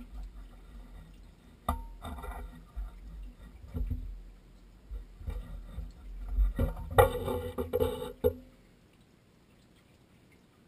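Steel pipe fittings being unscrewed and pulled off a well pump's outlet: irregular metallic knocks, clinks and handling noises, with a louder stretch lasting just over a second about seven seconds in. The noise then stops.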